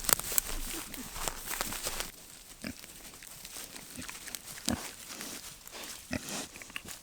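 Pigs grunting in short, low grunts several times, with dense rustling and crackling during the first couple of seconds.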